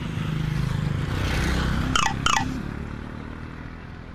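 A motor vehicle engine running close by, swelling toward the middle and fading, with two quick high squeaky chirps about two seconds in.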